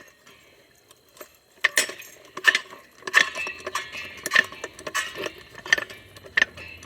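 Hydraulic car jack being pumped with its handle: a run of sharp metallic clinks, about one every two-thirds of a second, as the car is raised.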